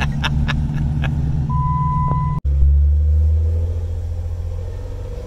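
Off-road vehicle engine running at low speed with a pulsing low drone, and a short steady electronic beep just before two seconds in. The sound cuts off abruptly and a deeper, louder engine drone follows, easing off.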